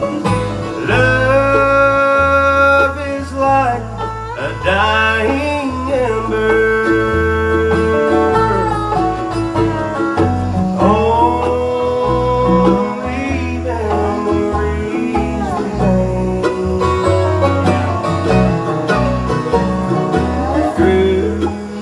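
Acoustic bluegrass band playing an instrumental break: strummed acoustic guitar and banjo under a lead instrument carrying the slow melody in long, sliding notes, with bass notes changing about once a second.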